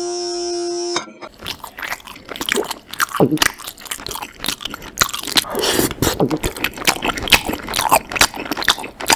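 Chewing and biting sound effect: loud, dense, irregular crunches of food being eaten. Before that, a steady hum-like tone cuts off abruptly about a second in.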